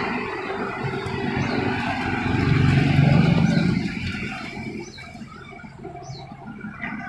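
Passing road traffic: a motor vehicle's engine rumble swells about three seconds in, then fades away.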